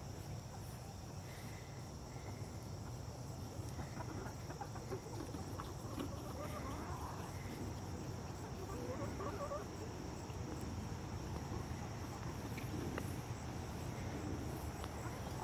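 Chickens clucking softly now and then over a steady high buzz of insects.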